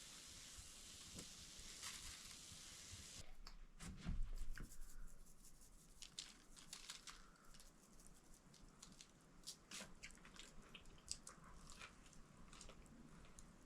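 Food sizzling in a pan for about three seconds, cutting off suddenly. A low thump follows, then scattered small tearing and crackling sounds of food being handled.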